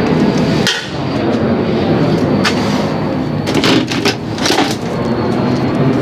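A few sharp metal knocks and clanks from hand tools working on a scrapped air-conditioner condensing unit as it is taken apart, over a steady background rumble.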